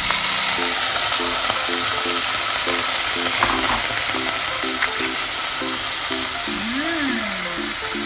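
Food sizzling steadily in hot olive oil in a frying pan, with a few light clicks of a utensil. A faint melody of short repeated notes plays underneath.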